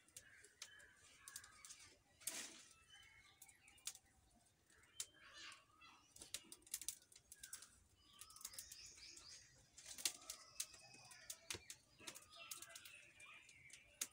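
Faint, irregular crackles and snaps of dry twigs burning and being fed into a wood fire in a clay stove, with birds chirping faintly in the background.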